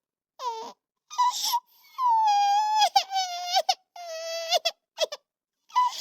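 High-pitched cartoonish crying: a string of drawn-out wails, each held on one pitch and breaking off, with a short falling whimper near the start and a breathy gasp about a second in.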